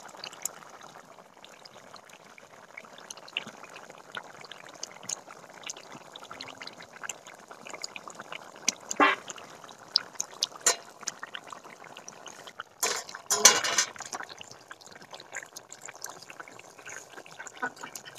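Egg and cauliflower curry simmering in a large aluminium karahi: a steady bubbling hiss with many small pops. A few short, loud animal calls cut in about halfway through and again a little later.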